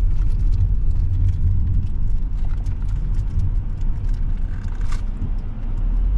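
Car driving along a road, heard from inside the cabin: a steady low rumble of tyres and engine, with faint light ticks now and then.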